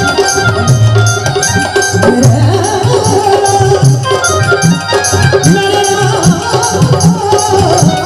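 Instrumental break in a live Rajasthani bhajan: drums keep a steady beat with high percussion on the beat, over a sustained melody line.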